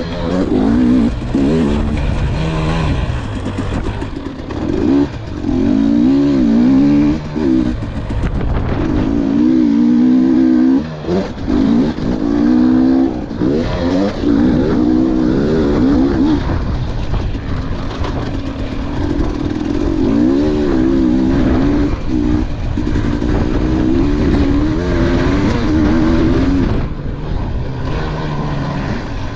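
KTM dirt bike's engine heard up close from the bike, revving up and down over and over as the rider works the throttle around a motocross track, with short dips in the engine note between pulls.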